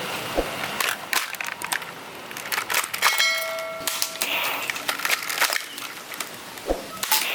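Clicks, knocks and clattering from handling toy blasters, with a brief ringing tone about three seconds in.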